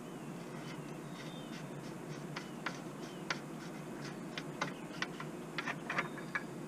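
Light, irregular metallic clicks and ticks as a threaded plug is turned out by hand and handled, growing busier in the second half, over a steady low hum.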